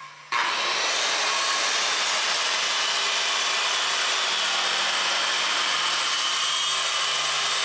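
Handheld circular saw cutting through a sheet of plywood, running steadily with a faint high whine over the noise of the cut. It starts abruptly just after the beginning.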